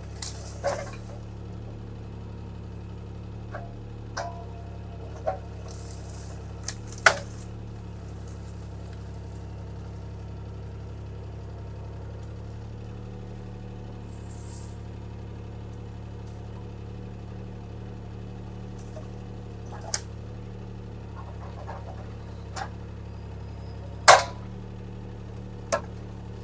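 Bobcat T300 skid steer's diesel engine running steadily while its grapple handles logs. Scattered sharp knocks and clanks of wood and metal break in, the loudest about seven seconds in and again near the end.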